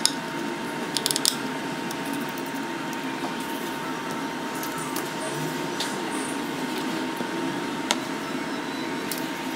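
A few small sharp clicks of fingers and tools working on the open iPhone's internal parts, bunched about a second in and once more near the end, over a steady hiss with a faint steady tone.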